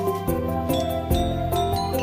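Background music: a light, tinkling melody of bell-like notes over a steady bass line.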